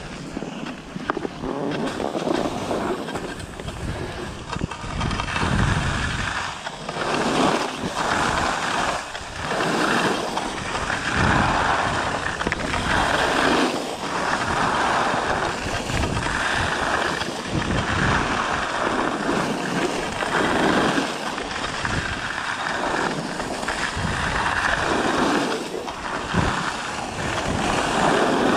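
Skis scraping and carving over packed snow through a run of turns, the hiss swelling and fading every second or two, with wind rumbling on the microphone.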